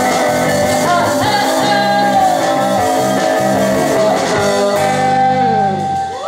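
Live rock band playing: singing over electric guitar, bass guitar, keyboard and drums. Near the end the cymbals drop out and a held note slides down in pitch.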